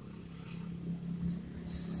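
Low, steady background rumble and hum; no bird calls.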